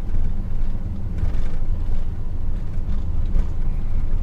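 Motorhome built on a Maxus V90 van driving along a city road: a steady low engine and road rumble.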